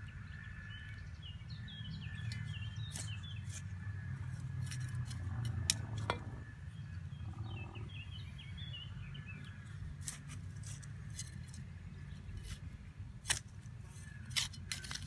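Hands and a steel hand trowel working garden soil while a squash seedling is planted: scattered sharp clicks and scrapes, a few louder ones near the middle and near the end, over a steady low rumble.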